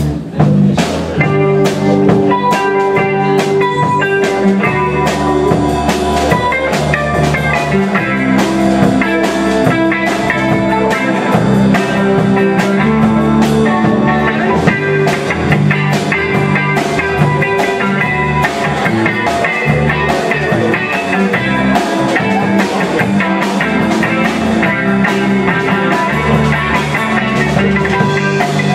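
Live rock band playing an instrumental passage: electric guitar over electric bass and drum kit.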